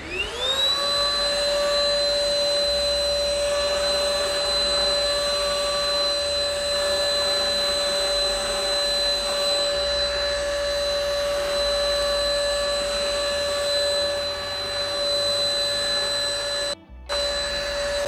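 Ingco 20V cordless handheld vacuum cleaner with a floor nozzle switching on, its motor spinning up in a rising whine and then running steadily as it sucks up wood planer shavings. The sound breaks off for a moment near the end.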